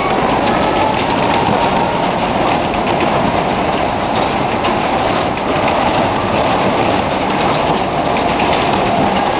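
Vintage Skid fairground ride running at speed: a loud, steady rumble and clatter of its cars and revolving platform in motion.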